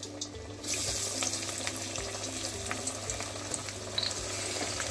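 Amaranth-leaf and chana patties being slid into hot oil in a kadhai for deep-frying, the oil sizzling with small crackles. The sizzle gets suddenly louder about half a second in as a patty goes into the oil, and keeps up steadily after that.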